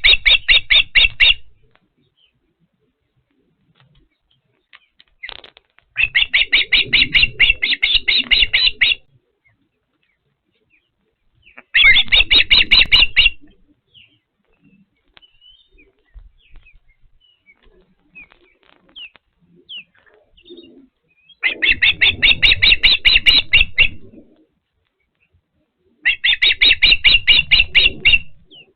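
Osprey calling at the nest in bouts of rapid, high-pitched chirps, each bout lasting two to three seconds: five bouts with pauses of a few seconds between them, the first already under way at the start.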